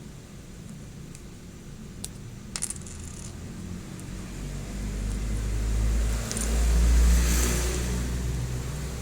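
Small hard plastic construction-toy pieces clicking and rattling, a few sharp clicks about two seconds in, then a low rumble that swells and is loudest near the end.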